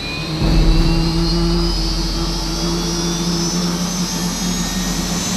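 Bell UH-1 Huey helicopter running on the ground with its rotors turning: a steady turbine hum, a whine that climbs slowly in pitch, and the low beat of the main rotor. The sound gets louder about half a second in.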